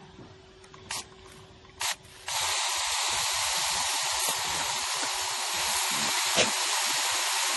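Water spraying with a steady hiss, starting abruptly about two seconds in, after two short clicks.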